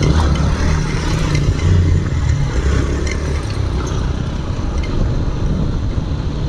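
Royal Enfield GT 650 parallel-twin engine with an SC Project aftermarket exhaust, running under way at low, slightly varying revs as the motorcycle is ridden over a rough, potholed track.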